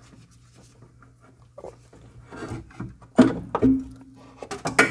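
Faint rubbing and handling, then two knocks about three seconds in, the second leaving a short ringing tone, and a quick run of sharper knocks near the end: a BMW E32 self-leveling suspension accumulator being lifted out and set down in a drip pan.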